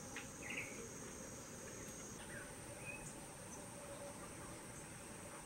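Faint, steady, high-pitched insect trilling in two pitches, one of them dropping out about two seconds in, with a few short bird chirps.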